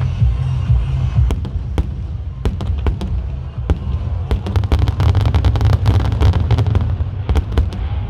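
Aerial fireworks bursting: a run of sharp cracks and bangs starting about a second in and coming thick and fast in the second half, over a heavy low rumble.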